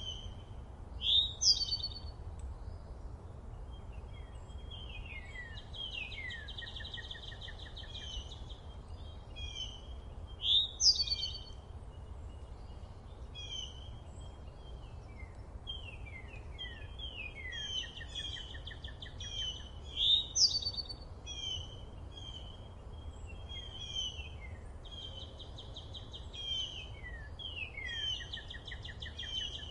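Songbirds singing and calling: a steady run of short chirps, falling notes and trills, with the loudest phrases coming about every nine to ten seconds, over a steady low rumble.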